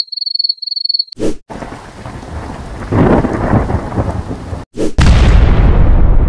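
Sound-effect clips in sequence. Crickets chirr in a steady high trill that stops about a second in. After a short blip, rain falls while thunder rumbles and swells about three seconds in. After another blip near the end, a loud explosion booms and keeps rumbling.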